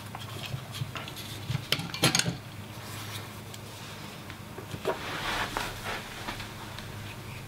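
Hands handling a 3D-printed plastic lightsaber chassis and PCB holder on a desk mat: scattered light clicks and knocks, a cluster of them about two seconds in, and a soft rub about five seconds in as a chassis is set down. A faint steady low hum runs underneath.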